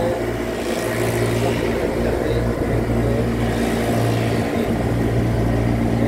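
Air-conditioning condensing units running, their hermetic refrigeration compressors giving a steady low hum.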